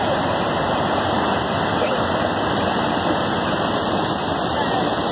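River water rushing steadily over the steps of a weir.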